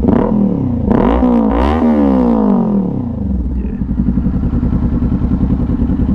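Kawasaki Ninja 400 parallel-twin engine breathing through a LeoVince slip-on exhaust, already warm, idling and then revved once about a second in. The pitch climbs and falls back to a steady idle by about three seconds.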